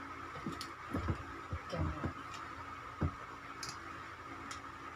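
A tripod being handled: scattered light clicks and soft knocks, irregular, with a few louder knocks about a second, two seconds and three seconds in. A faint steady tone runs underneath.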